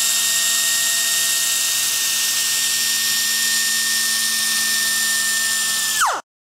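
Dynabrade 50210 air-powered 3-inch right-angle disc sander running free off the work: a steady high whine over a hiss of air. About six seconds in, the pitch falls and the sound cuts out.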